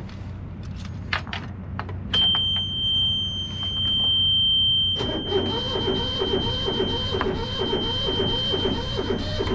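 A few clicks and a jingle of keys, then an electronic alarm buzzer sounds about two seconds in and holds one steady high-pitched tone. From about five seconds a lower pulsing, churning sound at about two pulses a second joins under it.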